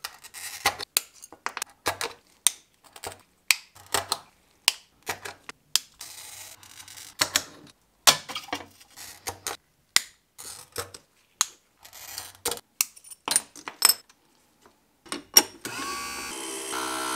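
Glass pieces and hand tools clicking and clinking sharply on a workbench as stained glass is cut and handled, a rapid run of separate taps. About fifteen seconds in, a Gryphon Gryphette glass grinder starts running with a steady hum.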